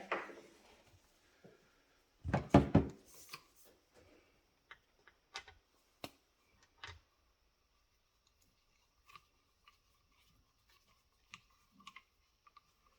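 Hand tools and metal parts being handled on a jet ski engine: a quick cluster of heavier knocks about two seconds in, then scattered light clicks and ticks.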